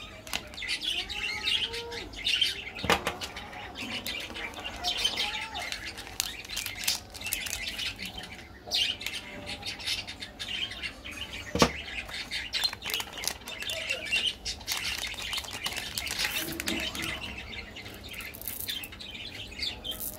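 Plastic candy wrappers crinkling and rustling as they are handled and opened, with a couple of sharp clicks, the loudest about eleven seconds in. Faint bird chirps sound in the background.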